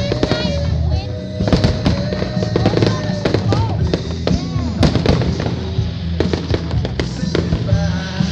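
Fireworks popping and crackling in quick, irregular succession, over music with a steady low bass line.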